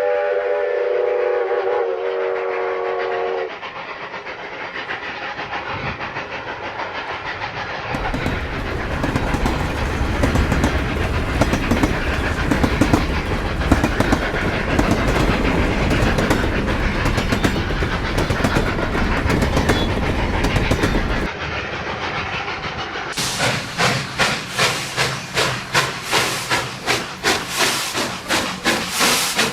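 Steam locomotive sounds: a chime whistle chord ends about three seconds in. A heavy train then rumbles past, and near the end the exhaust chuffs settle into a steady beat of about two a second.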